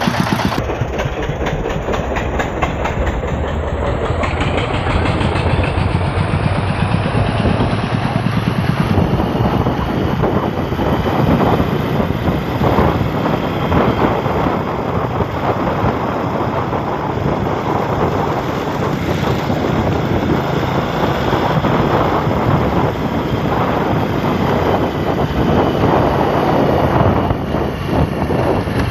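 Loud, steady engine running and road noise from a vehicle on the move, with a fast even rattle and no break.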